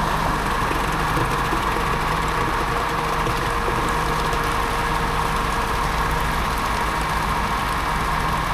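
Concrete pump's diesel engine running steadily, a constant machine hum with no changes.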